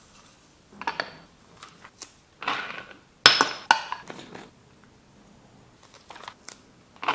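Glass spice jars, a metal funnel and wooden jar lids handled on a countertop: scattered clinks and knocks, the loudest a sharp clink a little past three seconds in.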